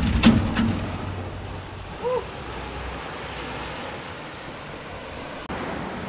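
Steady wash of sea surf with wind on the microphone. A couple of sharp clacks come just after the start, and a short pitched call sounds about two seconds in.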